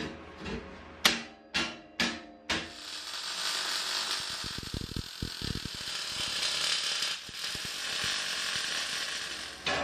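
A few sharp metal knocks as a sheet-steel shelf is set into a steel tube frame, then, about two and a half seconds in, a MIG welder (a Mastroweld MIG-250MI) strikes an arc and runs a weld for about seven seconds: a steady crackling hiss.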